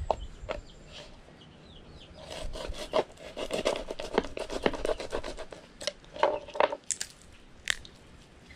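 A fillet knife cutting through iguana leg skin and joints on a plastic cutting board: irregular scraping, rasping strokes and small clicks, in two clusters with a lull between them.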